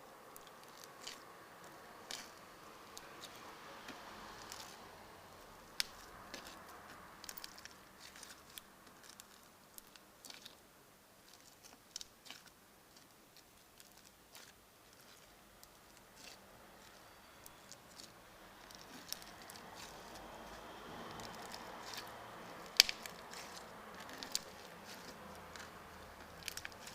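Crunchy slime being pressed and squeezed by hand, giving scattered small pops and crunches, a few sharper pops near the end. Behind it, a faint rush of road traffic swells and fades twice.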